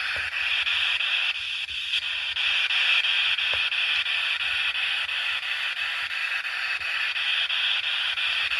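Spirit box scanning through radio frequencies, giving a steady hiss of static from its small speaker.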